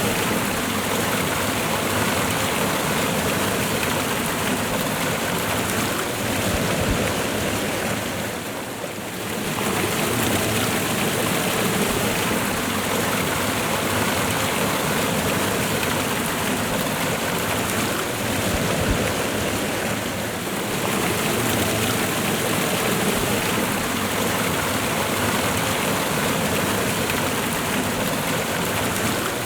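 Waterfall and river water rushing steadily, with a brief dip in level about nine seconds in.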